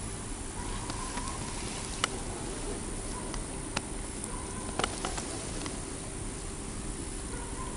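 Steady low background hiss of a quiet night outdoors, with a few faint sharp clicks scattered through it.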